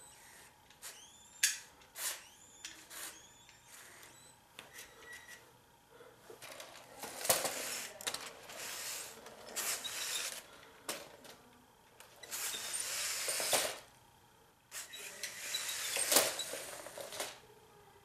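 Lego Technic toy trucks climbing over a Lego Technic racer: hard plastic pieces clicking, knocking and clattering against each other, with two longer stretches of rubbing, whirring noise in the second half.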